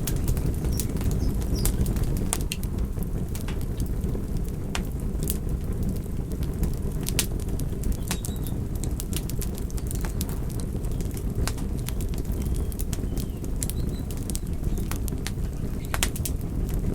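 Wood fire burning: a steady low rush of flames with frequent, irregular sharp crackles and pops.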